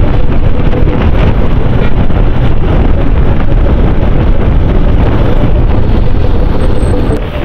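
Wind buffeting the microphone of a motorcycle riding at about 60 km/h, a loud, steady rumbling roar with the engine and road noise beneath it.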